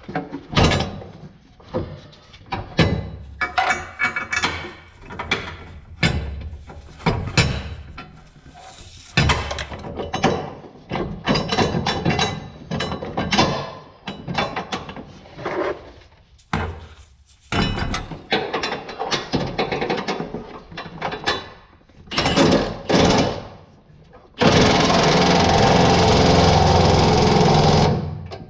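Clanking and scraping of steel bolts and a plow mounting bracket being worked into line against a truck frame, in many short knocks. Near the end, a power tool runs loud and steady for about three and a half seconds, then stops abruptly.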